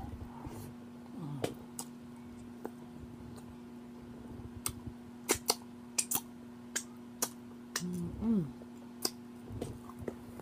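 Close-up eating sounds: scattered short lip smacks and chewing clicks, with a brief hummed "mm" about eight seconds in, over a steady low hum.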